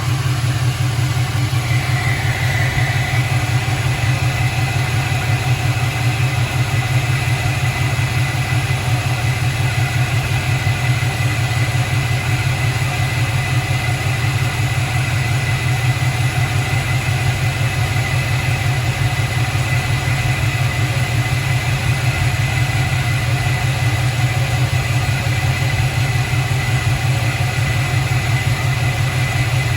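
LS V8 engine idling steadily through long-tube headers and a 3-inch Hooker BlackHeart header-back exhaust, a deep, even rumble with a faint steady high-pitched tone alongside.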